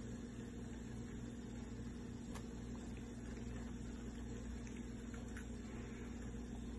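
Steady low machine hum with a couple of faint clicks.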